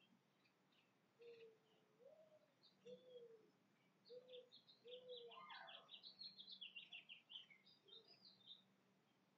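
Birds singing faintly: high chirps and quick trills that grow busier midway, with a series of five low, rounded notes about a second apart in the first half.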